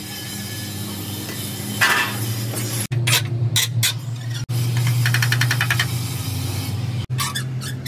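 Hand tools working on a metal radiator bracket: several sharp metal clinks, then a quick run of rapid, even clicking, over a steady low hum.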